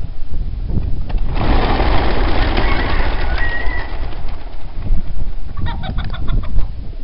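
A flock of fancy pigeons taking off together: a loud rush of many wingbeats starting about a second in and lasting a few seconds, then a quick run of sharp claps near the end. A low rumble runs underneath.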